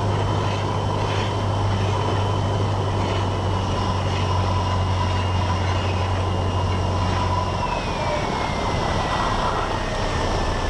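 Cessna 172N's four-cylinder engine and propeller droning steadily in the cabin during the landing, with a thin high tone over it. About three-quarters of the way through, the engine note and the high tone both drop in pitch.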